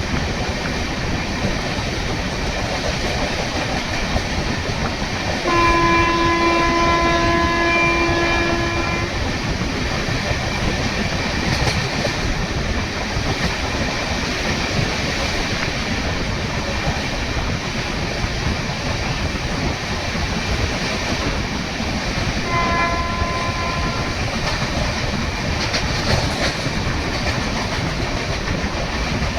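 Indian Railways express passenger train running on the rails with a steady rumble and clatter. A locomotive horn sounds about five seconds in for roughly three seconds, and again briefly some seconds before the end.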